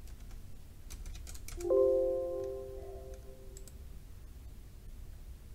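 A few computer keyboard keystrokes, then a Windows system alert chime: a short chord of several tones that fades away over about a second.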